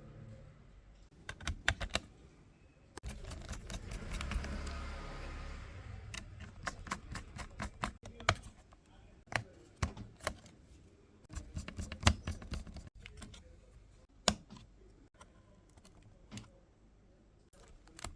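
Irregular plastic clicks and taps of a laptop being handled and reassembled, with a few seconds of rushing noise about three seconds in.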